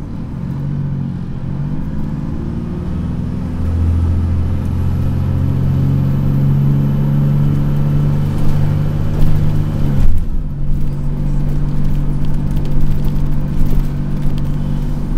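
Dennis Trident double-decker bus engine working hard, heard from inside the bus: the note rises over the first few seconds, then holds steady and loud under load. About ten seconds in the note drops suddenly, and the engine runs on at a lower pitch.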